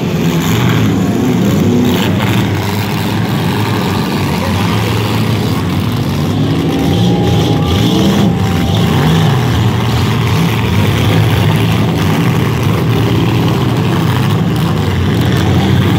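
Several demolition derby cars' engines running and revving together in a loud, continuous drone that rises and falls.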